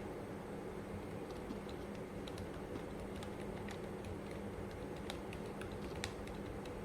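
Typing on a DK84 mechanical keyboard with Outemu Lime silent switches and Cherry-profile PBT keycaps: soft, damped keystrokes at an uneven pace.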